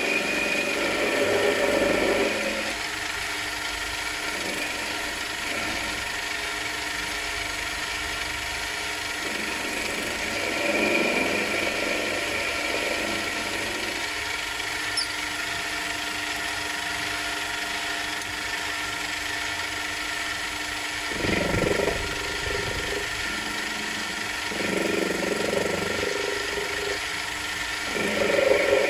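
Small metal lathe running with a steady motor whine while a cutting tool turns mild steel round bar. The rougher cutting noise grows louder and fades away again several times as the tool is fed in.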